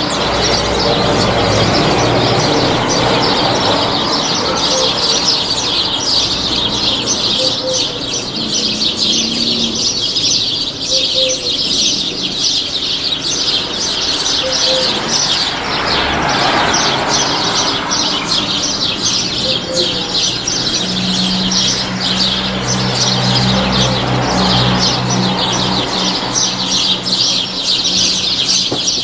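Many small birds chirping continuously in a dense chorus, with a low steady hum coming in about two-thirds of the way through.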